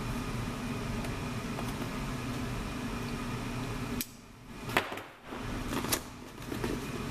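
Steady hum of a space heater's fan that stops suddenly about four seconds in. Then come a few sharp clicks and taps as a cardboard keyboard box is slit open with a knife.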